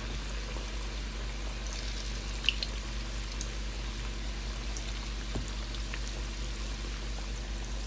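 Marinated chicken pieces deep-frying in hot oil in a steel wok: a steady bubbling hiss with scattered small pops and crackles. A single sharp click about two and a half seconds in.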